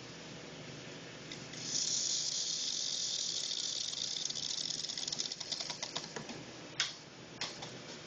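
Industrial belt sander running with a steady low hum. About two seconds in, a thumbnail is held against the moving belt, giving a loud high hiss for about three seconds that breaks into crackling and fades. There is a single sharp click near the end.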